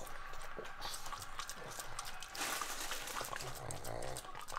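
Pug licking at a lemon wedge: a run of small wet tongue clicks, with a steady hiss joining them about halfway through.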